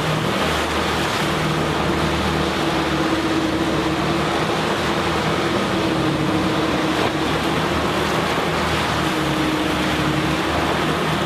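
Fishing boat's engine running steadily at trolling speed, a constant drone, over the rush of the churning wake behind the stern.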